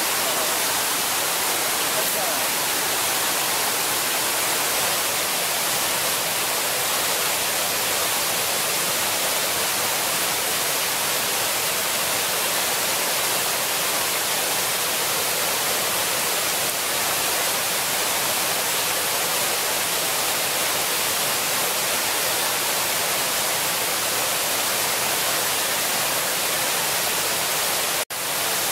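Steady hiss of running water, even throughout, cutting out for a split second near the end.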